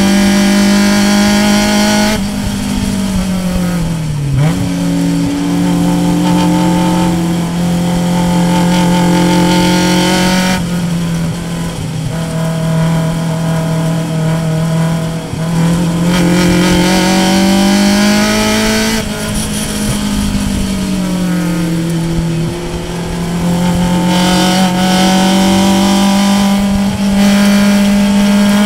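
Race car engine at high revs, heard from inside the cockpit. It climbs steadily in pitch, then drops sharply several times as the driver brakes and shifts gears through a corner.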